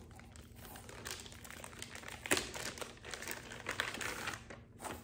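Clear plastic packaging crinkling as a wireless microphone receiver in its bag is handled and turned over, with irregular crackles, the sharpest one a little over two seconds in.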